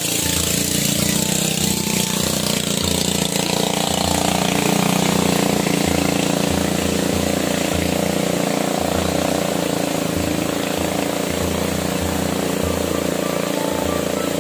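Steady roar of a fast-flowing river rushing through rapids, with background music carrying a low pulsing bass underneath.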